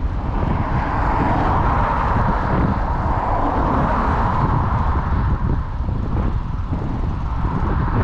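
Wind rumbling on the microphone while riding, as a car passes close alongside; its tyre and engine noise swells to a peak about halfway through and then fades.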